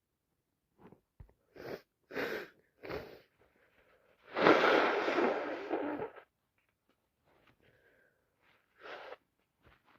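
Sneezing from a heavy cold: a run of short, catching in-breaths builds up over the first three seconds, then one loud sneeze comes just after four seconds and trails off over about two seconds. A few quieter breaths follow near the end.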